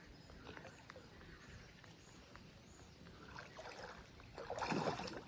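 Light rain falling on water, a faint patter with scattered drops, then loud water splashing from about four and a half seconds in as a swimmer moves through the water.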